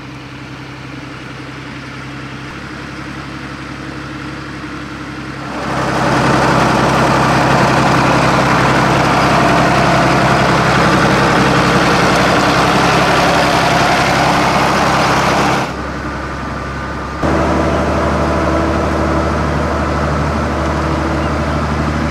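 UTB 1010 DT 4x4 tractor's diesel engine running steadily, growing louder over the first five seconds as it draws near. About a quarter of the way in, the sound jumps to a much louder close-up level, then drops and rises again abruptly in the last third.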